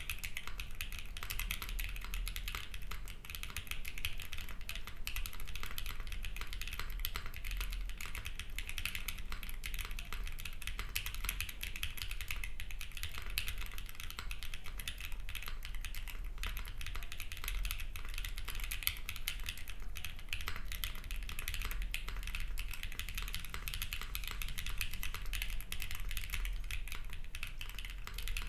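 Fast, continuous typing on a custom 60% HHKB-layout mechanical keyboard with an aluminium plate and no foam, fitted with light Sarokeys Strawberry Wine linear switches and GMK doubleshot ABS keycaps: a dense stream of key clacks and bottom-outs. The uploader finds these switches sound dull on the aluminium plate.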